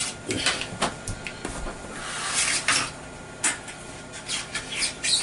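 Metal shower-door bottom track being pried loose with a screwdriver and lifted off the shower pan: a run of sharp clicks and knocks, a longer scrape about two seconds in, then more knocks.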